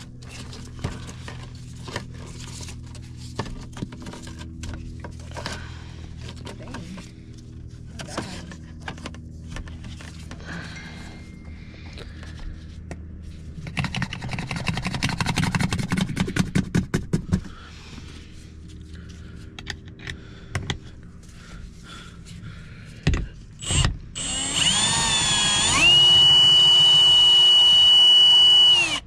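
Handheld power tool motor spinning up and holding a loud, steady high whine for the last few seconds. Before that come scattered light clicks and knocks and a brief fast rattling burst in the middle.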